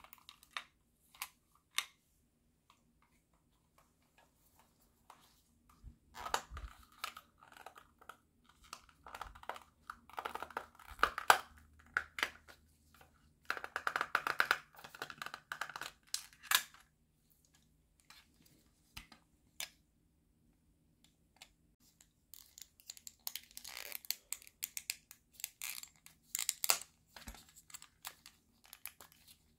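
Handling noise from the plastic housing of a Logitech Marble Mouse trackball being taken apart: scattered clicks, and plastic knocking, rubbing and scraping as the shell is turned over and pried apart. The noise comes in two busy stretches with a quiet spell between.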